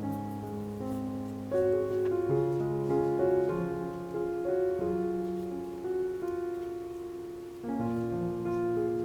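Background music: soft, slow piano playing sustained chords.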